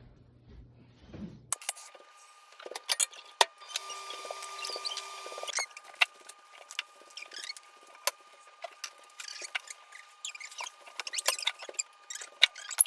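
Kitchen work sounds: scattered clicks and knocks of utensils and dishes being handled, with a brief rush of noise lasting about two seconds, starting nearly four seconds in.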